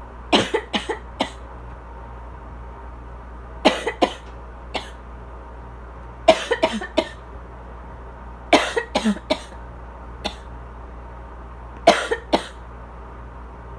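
Asthma coughing: five fits of three to five quick coughs each, a few seconds apart. The steady hum of a loud air conditioner runs underneath.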